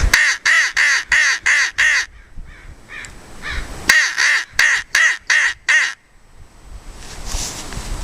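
A Lohman reed crow call blown in two quick runs of about seven short, rising-and-falling caws each, with a short pause between: an imitation of what he thinks is an injured crow's call.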